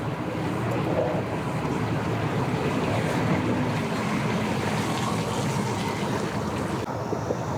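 A boat motor running steadily, a low hum under an even rushing wash of water and wind.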